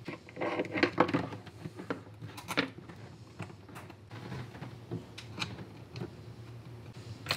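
Light clicks and knocks of a charger lead's cable end and terminal nut being handled and fitted onto a battery post, a few in quick succession near the start and single ones spaced a second or more apart after that, over a faint steady hum.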